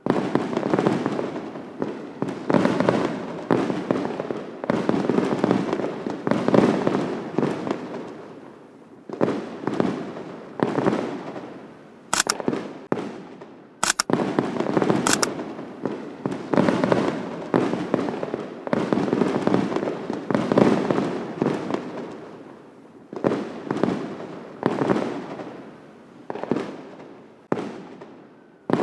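Fireworks bursting one after another, each bang trailing off as it fades, with brief lulls about eight and twenty-two seconds in. A few sharp, thin cracks come about twelve to fifteen seconds in.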